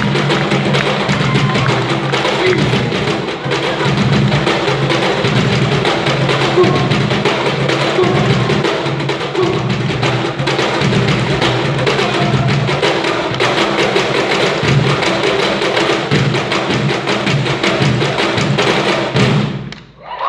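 Peruvian cajón percussion played live: fast, dense wooden box-drum strokes with a deep bass tone, stopping suddenly near the end.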